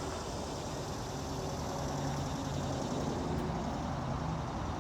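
Steady background rumble with a faint low hum, even throughout, like distant traffic or machinery.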